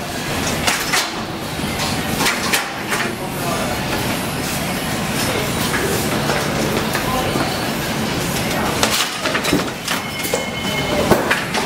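Wheeled steel bakery rack loaded with taralli rattling and clattering as it is rolled into a rack oven, with many metal clicks and knocks over a steady background noise.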